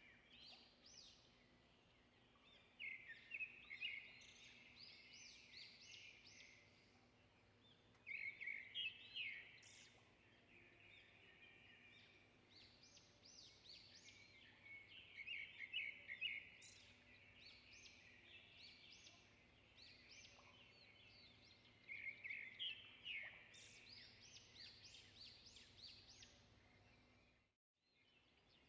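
Faint birds chirping in repeated quick bursts every several seconds over a low steady hum, cutting out briefly near the end.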